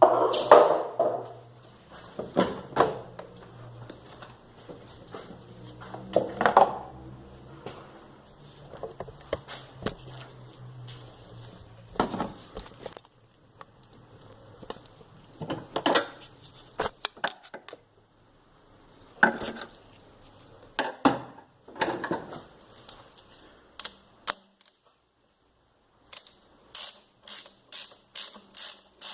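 Metal tools clinking and knocking against metal during a gearbox oil change, ending in a quick run of even clicks, about three a second.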